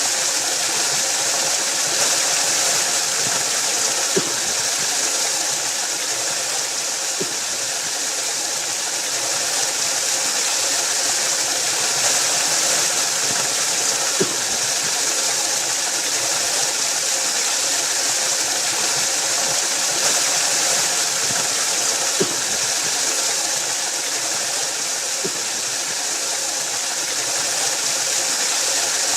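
Waterfall: a steady, even rush of falling water, strongest in the hiss, with a few faint splashes or drips.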